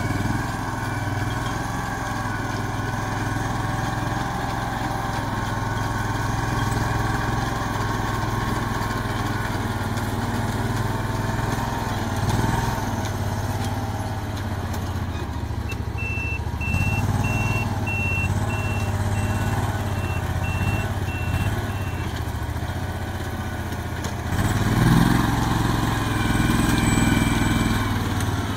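A farm machine's engine running steadily, its pitch wavering now and then. Past the middle comes a run of short electronic beeps, about two a second for some six seconds, and the engine gets louder near the end.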